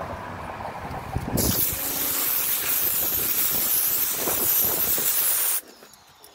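Electric pressure washer gun spraying a high-pressure jet of water: a loud, steady hiss that starts suddenly about a second and a half in and cuts off sharply about four seconds later as the trigger is released.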